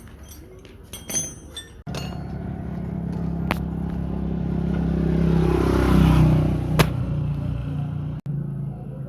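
Motorcycle engine running with a steady hum that grows louder to a peak about six seconds in, then eases off. There is a sharp click just before seven seconds, and some clattering clicks at the start.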